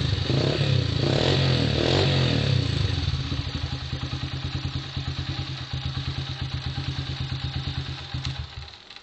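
Yamaha YBR Factor motorcycle's single-cylinder four-stroke engine blipped up in pitch a few times, then settling into an evenly pulsing idle, and switched off near the end.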